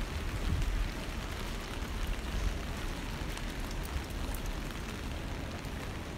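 Steady rain falling on a wet street, an even hiss with a low rumble underneath.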